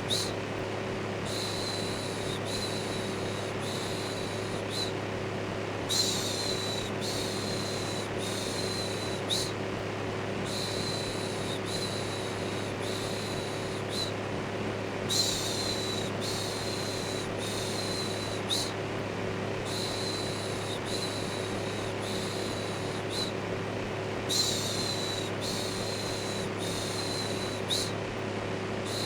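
Electric fan running steadily with a low hum, overlaid by rhythmic "shhh" shushing. The shushes repeat about every three-quarters of a second, with a few short pauses.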